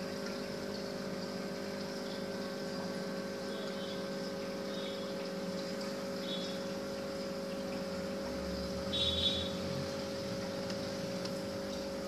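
Aquarium waterfall and its water pump running: steady trickling water over a constant motor hum. A brief, slightly louder sound comes about nine seconds in.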